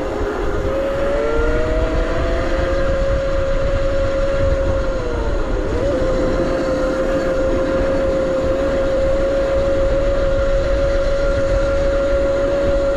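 Razor RSF 650 electric motorcycle's motor whining under way in its top speed setting. The pitch climbs over the first couple of seconds, dips briefly about five seconds in, then holds steady, over a constant low rumble of wind on the microphone.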